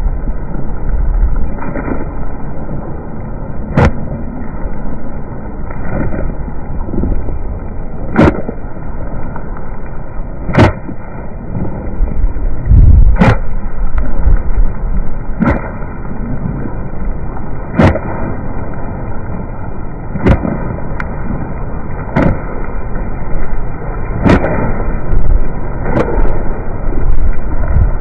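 Running footsteps in a rainstorm played back in slow motion: a deep, muffled rushing with a sharp thud about every two and a half seconds.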